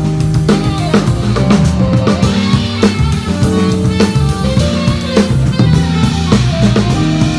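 A live band playing a groove: a drum kit with busy kick and snare hits, a bass line underneath and pitched melodic notes from a guitar or keys on top.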